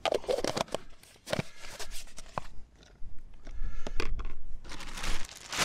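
Food packaging being handled: light clicks as a small plastic tub is emptied over a cast iron Dutch oven, then a stretch of crinkly rustling from a paper or plastic food bag about three seconds in.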